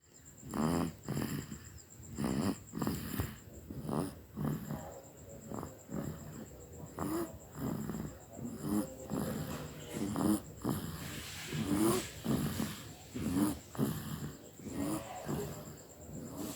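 A sleeping baby boy snoring, a rough, wheezy snore on each breath in and out, repeating about every second and a half.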